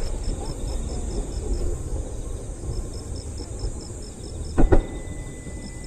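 Fireworks going off: a steady low rumble of bursts with a sharp double bang about four and a half seconds in.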